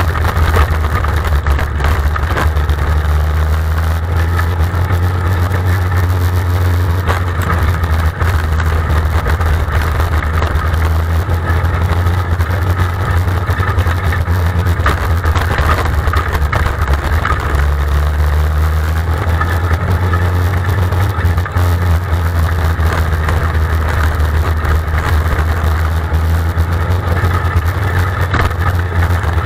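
A winged dirt-track race car's engine idling steadily, picked up by the camera mounted in the car: a low, even drone that barely changes.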